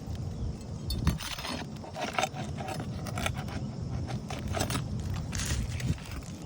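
Metal roofing tool clinking and scraping against asphalt shingles and roofing nails as the shingles are pried up to get at the fasteners, with irregular short clicks and scrapes over a low steady rumble.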